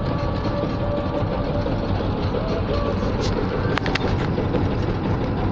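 Carburettor ZMZ-406 four-cylinder petrol engine of a GAZelle running steadily with a drone and a faint whine, with a few sharp clicks about two-thirds of the way in; the owner takes the humming for a sign that the engine is failing.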